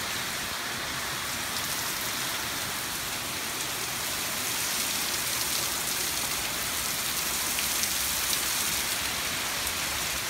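Heavy rain pouring steadily, with a dense hiss and a few sharp drop ticks.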